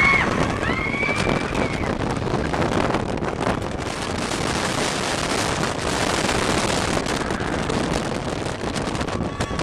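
Wind rushing over the microphone and the rumble of a steel roller coaster train running along its track at speed. A rider's scream carries on briefly in the first two seconds.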